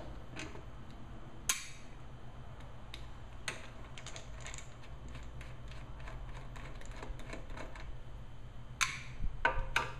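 Scattered small clicks and ticks of a screwdriver backing out the cover screws of a small Briggs & Stratton lawn mower carburetor, with a few sharper metallic clicks about a second and a half in and again near the end. A faint steady low hum underneath.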